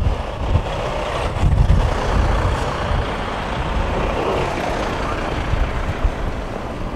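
Heavy truck engine running close by, steady throughout, with gusting wind buffeting the microphone.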